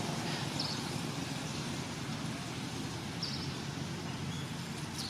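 Steady outdoor background rumble with three brief, high chirps spread across it.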